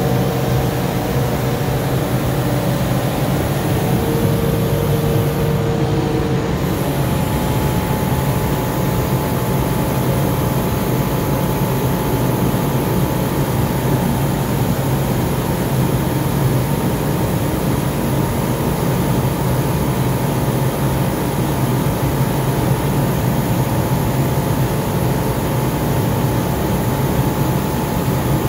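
Powder-coating booth in steady operation while the electrostatic spray gun puts powder onto a steel bumper: a continuous low drone with a hiss of rushing air, unchanging throughout.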